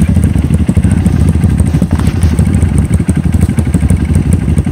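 A vehicle's engine running at low revs, with a rapid, uneven firing pulse.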